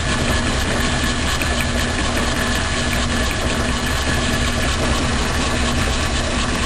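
Logan lathe running steadily, its chuck-mounted fly cutter taking an interrupted milling cut on round bar stock clamped in a vise on the cross slide.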